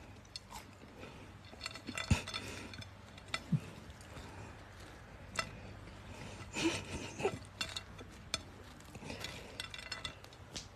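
Faint scattered clicks and light clinks of a plate of fries being touched as a cat paws at it, over a soft rustle, with a few sharper clicks about two seconds in and near the middle.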